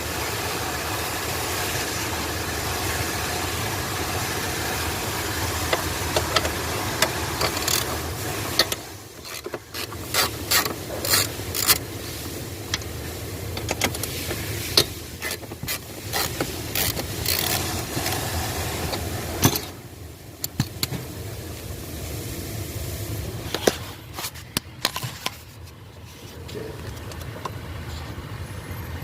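Hand tools working on a car's steering column: a scattered run of sharp clicks and metal knocks over a steady mechanical hum, which falls away about nine seconds in and again near twenty seconds.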